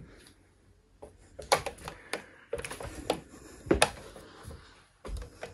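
Irregular footsteps, clicks and knocks on wooden floorboards in a small room, with a heavier thump about five seconds in.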